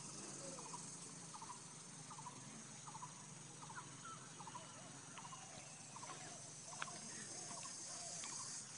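Faint outdoor insect chorus, a steady high hiss, with short chirping animal calls repeating about every half second over it. One sharp click comes near the end.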